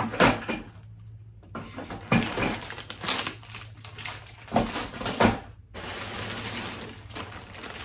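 Gift items and packaging being handled: rustling, with several sharp knocks and clicks as things are set down and moved.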